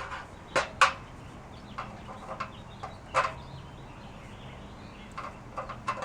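Irregular sharp clicks and knocks of screws, a screwdriver and metal grill panels being handled during assembly. The loudest strikes come about half a second in, just under a second in and about three seconds in, with lighter ticks between them.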